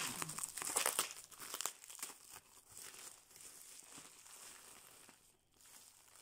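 Plastic bubble mailer crinkling and rustling as it is handled and opened. It is loudest in the first couple of seconds, then fades to faint, scattered rustles.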